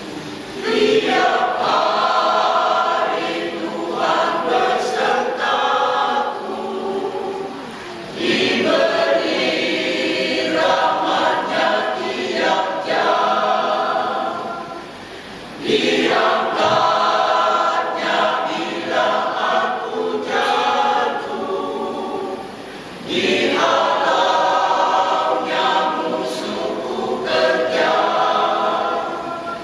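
Elderly church choir singing in long phrases, with short breaks between phrases about every seven or eight seconds.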